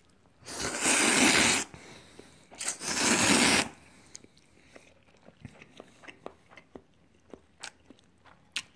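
A person slurping tonkotsu ramen twice, each slurp lasting about a second, followed by quiet chewing and light clicks of chopsticks against the bowl.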